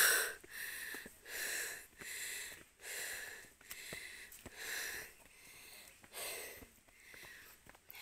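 A person breathing hard and fast, panting in and out about once a second, out of breath from climbing steep uphill steps.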